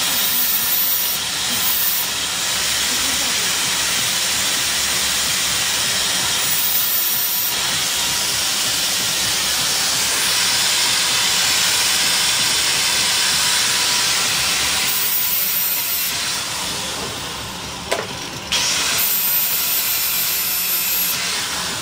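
Angle grinder running with its disc against the protruding end of a steel threaded rod: a loud, steady hissing grind. It eases off briefly about three-quarters of the way through, with a sharp click, then picks up again and trails off near the end.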